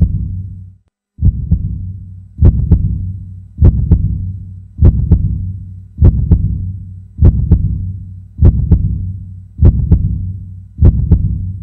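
Heartbeat sound effect: slow, deep double thumps, lub-dub, repeating about every 1.2 seconds, each trailing off into a low rumble.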